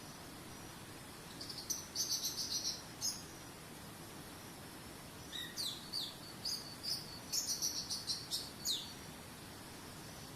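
Songbird singing two bursts of quick, high chirps and downward-sweeping whistled notes, over a steady rush of waterfall water.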